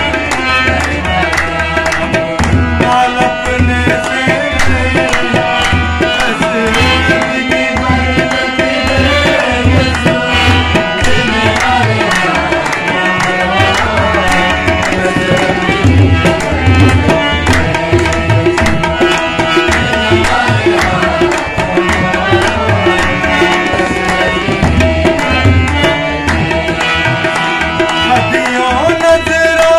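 Tabla and harmonium playing together. Deep strokes on the tabla's bass drum recur in a steady rhythm among sharper strokes on the smaller drum, while the harmonium holds steady notes and chords.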